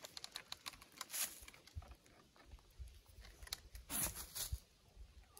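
Faint scattered clicks and crackles of dry leaf litter and of a wooden bow and its string being handled as the bow is strung, in small clusters about a second in and again about four seconds in.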